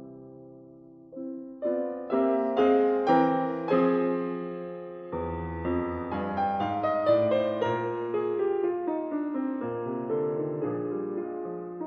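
Piano music playing slow chords and a melody, each note struck and fading. It grows fuller and louder about two seconds in, and deeper bass notes join near the middle.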